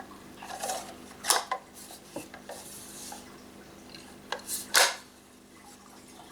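Handling noise: metal clinks and clatters from a BB gun and a hex wrench being handled and set down, about half a dozen separate knocks, the loudest near five seconds in, over a faint steady hum.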